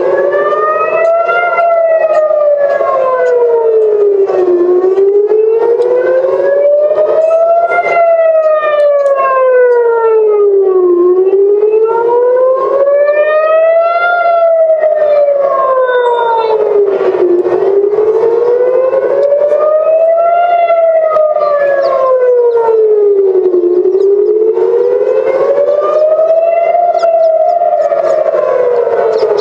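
Civil-defence air-raid siren wailing, its pitch rising and falling in slow sweeps that peak about every six seconds, five times in all. It is the warning of incoming rockets.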